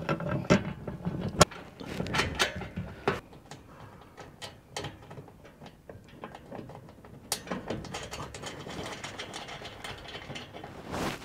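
Ratchet spanner clicking in short runs as the roof shelf's mounting bolts are done up, with a few sharp metal knocks in between.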